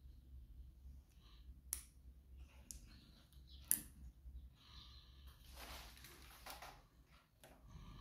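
Miele W5873 front-loading washing machine at the very end of its final spin, the drum coming to rest with a faint low hum. A few sharp clicks come through, the loudest a little under four seconds in, and a soft rush of noise lasts about a second and a half near the end.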